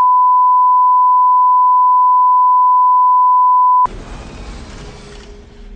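Steady 1 kHz line-up test tone that accompanies broadcast colour bars, cutting off abruptly about four seconds in. A much quieter low rumble follows.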